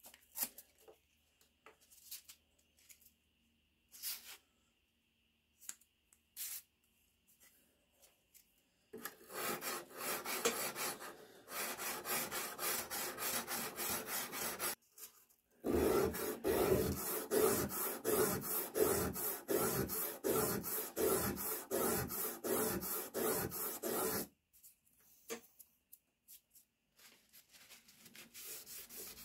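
Sandpaper on a flat bar rubbed by hand over a rusty steel bayonet blade. A few light clicks come first. Then come quick back-and-forth scraping strokes, and after a short pause louder, even strokes about two a second for some eight seconds that stop suddenly. A faint wiping of a cloth on the blade follows near the end.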